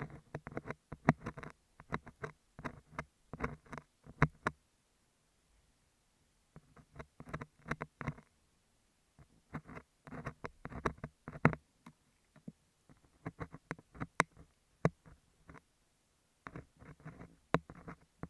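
Ear pick scratching and crackling on a beeswax sheet held close to an earphone microphone. The sound comes in bursts of a few seconds of dense crackles and clicks, with short pauses between them.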